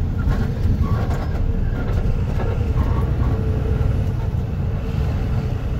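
Loaded truck's engine and road noise heard from inside the cab while driving, a steady low rumble.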